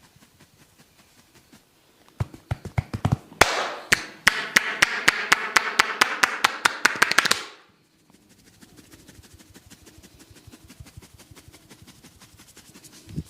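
Head massage at close range: about two seconds in, a run of sharp, evenly spaced smacks of the hands on the head, about four a second over rubbing of hair, which stops after about five seconds. Faint, fast scratching of the scalp follows.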